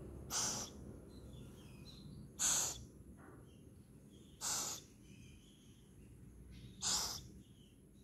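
Owlets giving four short, rasping hiss-like calls, about two seconds apart.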